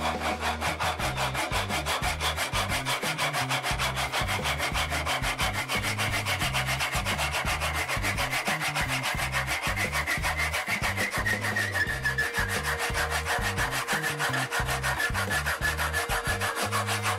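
Woodworking hand saw, its blade burred by striking it with a file, sawing through a steel nail that sticks out of a wooden board: steady, rapid back-and-forth strokes of steel rasping on steel, about four or five a second. A faint steady ringing tone comes in near the end.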